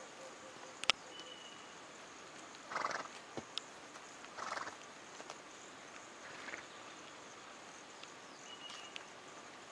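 Zebra giving two short, breathy calls about a second and a half apart and a fainter third one later, over a faint steady outdoor background. A sharp click comes about a second in.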